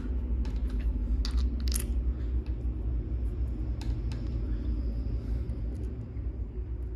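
A few small, sharp clicks and taps of small screws and clutch parts being handled, over a steady low rumble.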